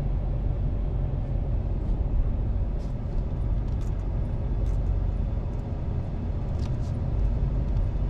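Vehicle driving: a steady low rumble of engine and tyres, with a few faint light ticks over the top.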